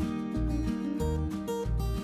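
Background music with a steady beat and repeating bass notes.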